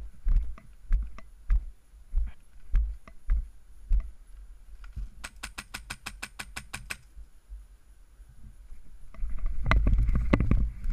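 Footsteps on a gravel path, then a fully automatic burst of about a dozen shots from a Polar Star HPA-powered airsoft rifle about five seconds in. Near the end come heavy running footfalls with rustling.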